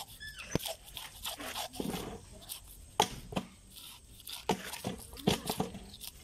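Knife scraping the scales off a whole red tilapia: irregular rasping strokes with sharp clicks, the sharpest about three seconds in.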